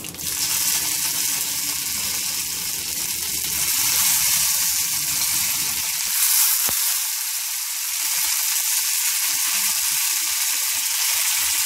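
Curry leaves, urad dal and mustard seeds sizzling in hot gingelly oil in an iron kadai: the tempering stage of pirandai thokku. It is a steady sizzle that grows a little louder partway through, with a single sharp pop about two thirds of the way in.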